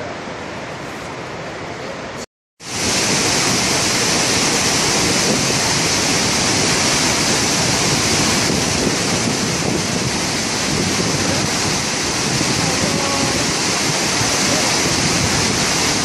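Iguazu Falls roaring: a steady rush of falling water with no rhythm. About two seconds in it cuts out for a moment, then comes back louder and fuller as the view moves right up to a thundering cascade.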